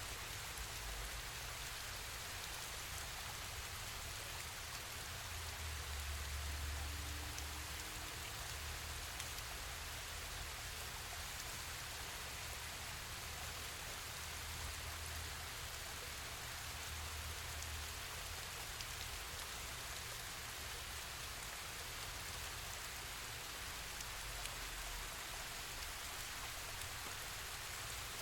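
Steady hiss of falling water from the Tatlıca cascades, with a low rumble swelling now and then beneath it.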